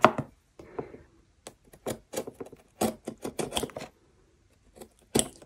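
Scalpel slitting the shrink-wrap film on a cardboard kit box: a series of short, irregular scratches and plastic crinkles with brief pauses between them.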